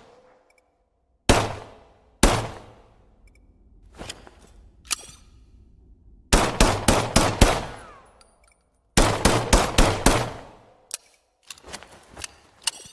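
KE 41 mini pistol firing: two single shots about a second apart, a few light mechanical clicks, then two rapid strings of about six shots each, with quieter clicks near the end.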